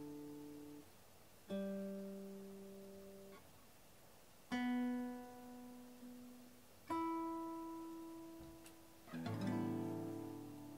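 Background music: a slow acoustic guitar playing single chords about every two and a half seconds, each left to ring out. The fourth chord, near the end, is a fuller strum with lower notes.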